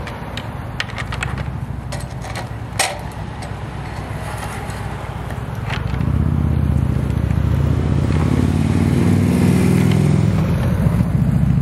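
Elk antlers clacking together in a quick series of sharp knocks in the first three seconds, the loudest about three seconds in and one more near six seconds. Under them a vehicle engine runs steadily, growing louder about six seconds in.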